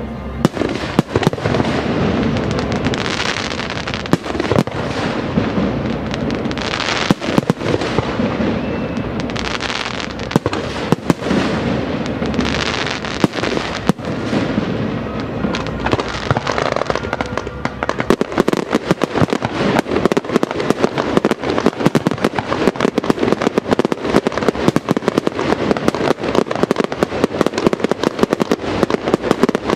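Fireworks display: aerial shells launching and bursting in quick succession. About two-thirds of the way in they give way to a dense, rapid string of small cracking reports.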